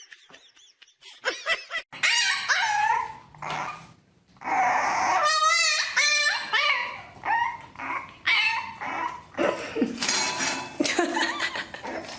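A dog vocalising in a run of short pitched calls, with a longer wavering call about five seconds in.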